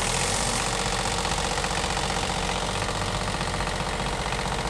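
Westerbeke marine diesel generator running steadily just after starting, with a fast, even engine beat, cold and freshly fitted with a new water pump.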